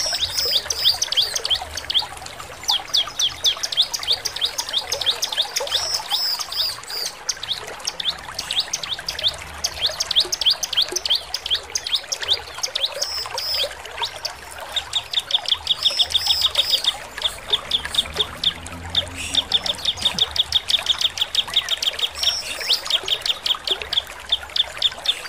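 Bar-winged prinia (ciblek) singing a fast run of sharp, high chips. It twice breaks into a quicker, even rattling trill in the second half.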